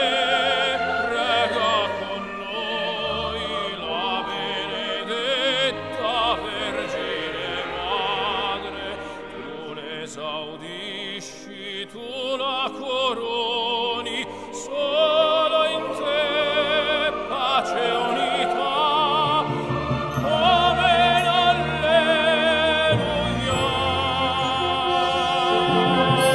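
Orchestral sacred music in an operatic style, with a sustained melody sung or played with heavy vibrato.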